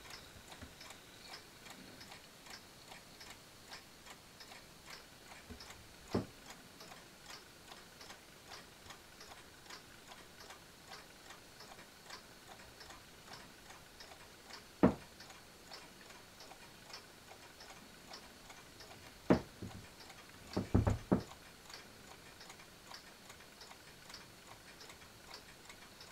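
Mechanical clock ticking steadily, faint and even. A few louder knocks break in: one about 6 seconds in, one at about 15 seconds, and a cluster of them around 19 to 21 seconds.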